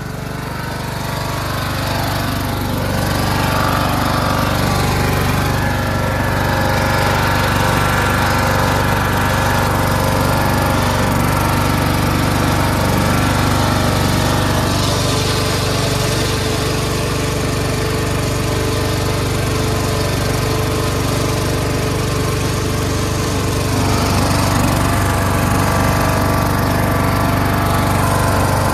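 Craftsman lawn tractor engine running steadily while the tractor is driven, getting louder over the first few seconds and then holding an even note.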